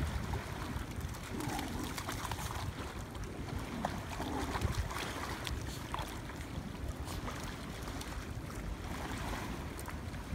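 Wind rumbling on the microphone over water splashing and lapping as dogs swim through a shallow river, with scattered small splashes.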